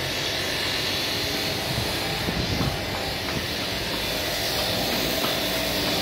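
Steady rushing ambient noise of a building site, with a strong hiss and no distinct impacts or voices.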